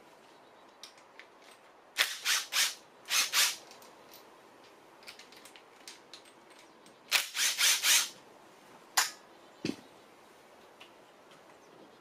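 Cordless impact driver hammering in short bursts, loosening the bolts of a Honda K24A engine's timing chain tensioner: a few bursts about two seconds in, another group about seven seconds in and a last short one near nine seconds, followed by a dull knock.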